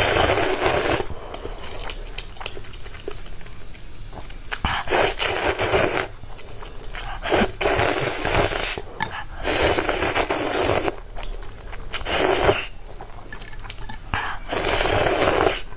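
Ramen noodles being slurped loudly in about six bursts of roughly a second each, with quieter chewing between the slurps.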